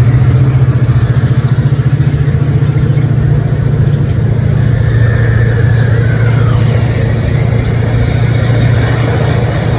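Diesel locomotive engine running loud and close, a steady low hum with a fast even throb. A faint falling whine comes through about five to six seconds in.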